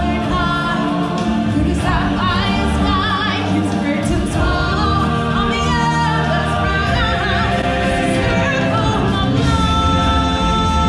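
Live stage-show musical number: a choir and solo voices singing over instrumental backing, with long held notes and vibrato.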